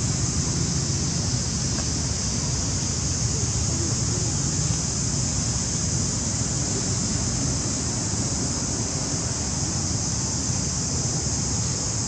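Steady outdoor noise: a low wind rumble on the microphone under a constant high hiss, with no distinct calls or knocks.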